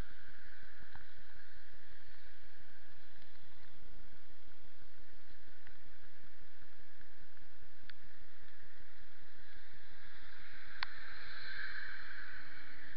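Steady hiss of rain and water on a wet street, with a few sharp ticks and a swell in the hiss near the end.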